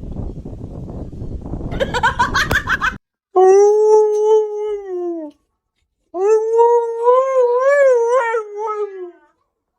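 A dog howling: two long drawn-out howls, the first held level and sinking at its end, the second wavering up and down in pitch. They follow about three seconds of rough noise with a quick run of short yelps, which cuts off abruptly.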